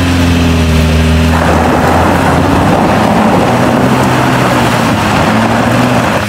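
Recovery vehicles' engines running under load as a stuck delivery van is towed out of a ditch. About a second and a half in, a loud rushing noise joins the engine hum and holds steady, then cuts off suddenly just before the end.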